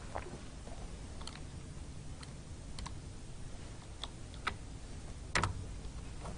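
Computer keyboard keys pressed one at a time: about eight separate clicks at irregular intervals, the loudest a quick pair about five seconds in, as text is deleted from a command line.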